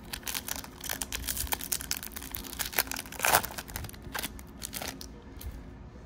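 A foil trading-card pack wrapper crinkling in the hands and being torn open, the loudest rip a little past the middle.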